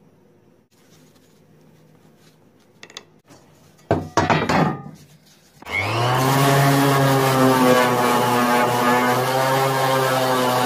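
A brief burst of loud scraping about four seconds in, then a handheld electric orbital sander spins up and runs steadily on a sheet of brass, a steady motor whine with a hiss of abrasion.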